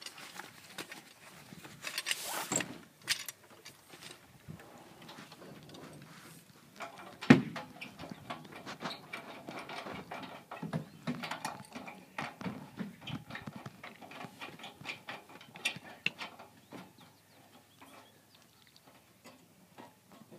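Metal truss tubes of an Orion XX14g Dobsonian telescope being handled and fitted into the mirror box: scattered clicks, knocks and rustling, with one sharp knock about seven seconds in.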